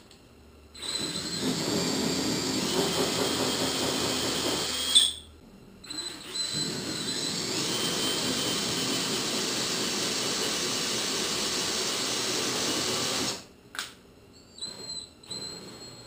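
Cordless drill spinning a hole saw with a centre pilot bit against a fiberglass boat deck, run in reverse to score through the gel coat without cracking or chipping it. It runs with a steady high whine for about four seconds, squeals briefly and stops, then runs again for about seven seconds before stopping, with a few short blips near the end.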